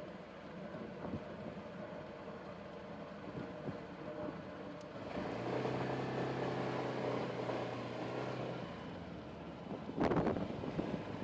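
Honda PCX scooter's single-cylinder engine pulling away from a stop, low and quiet at first and then a steady drone from about five seconds in. About ten seconds in a louder rush of wind on the microphone comes up as it gathers speed.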